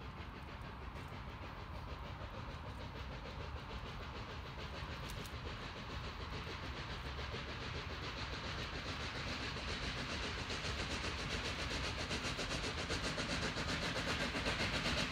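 Steam locomotive working under power as it approaches, its exhaust chuffing in a steady rhythmic beat that grows gradually louder.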